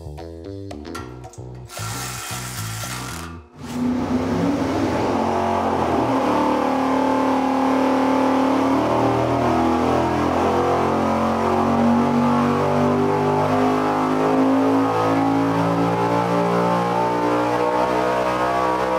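Music for the first few seconds. Then a roughly 800-horsepower V8 on an engine dynamometer runs loud at wide-open throttle in a power pull, its pitch climbing steadily as it sweeps up toward about 7,300 rpm.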